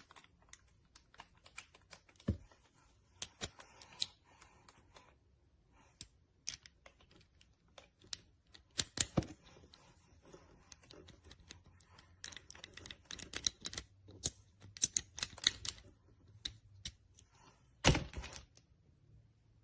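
Small metal tools being handled: irregular clicks and light clinks, some in quick clusters, with a louder knock near the end.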